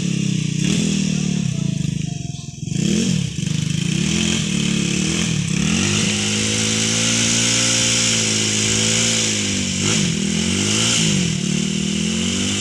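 Dirt bike engine revving in short blips, then held at high revs for about three seconds midway, then blipped up and down again.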